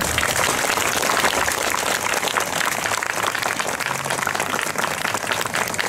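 Crowd applauding: many people clapping at once, starting the moment the speech breaks off.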